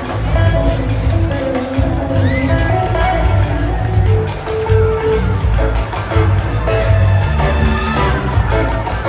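Live rock band playing in a large concert hall, heard from among the audience: electric guitar lines over a steady bass beat.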